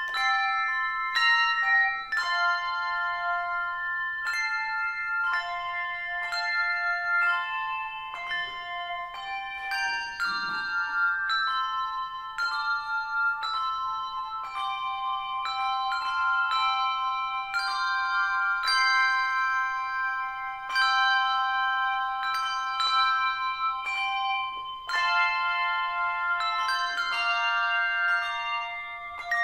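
A handbell choir of four ringers playing a tune: handbells struck in melody and chords, each note ringing on and overlapping the next.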